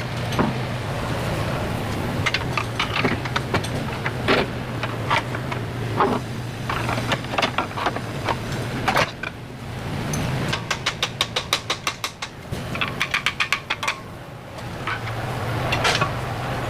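Hand tools at work on a car's front suspension: scattered metallic knocks and clinks, and about ten seconds in two quick runs of even clicks, about ten a second, over a steady low hum.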